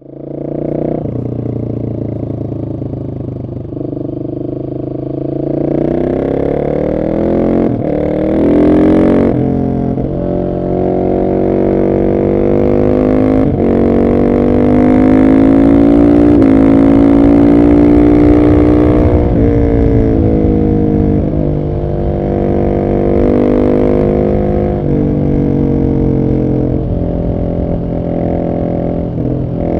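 Husqvarna 701 SM's single-cylinder four-stroke engine, breathing through a decatted Arrow exhaust with the dB killer fitted. The bike is being ridden and accelerated through the gears: revs climb, then the pitch drops sharply at each gear change. It runs lower and quieter for the first few seconds, then louder and harder from about six seconds in.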